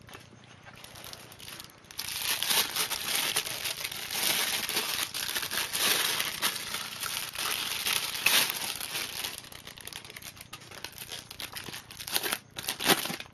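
Plastic packaging crinkling and rustling as boxed components are unwrapped. It starts about two seconds in, stays dense for several seconds, then eases off, with a few sharp clicks near the end.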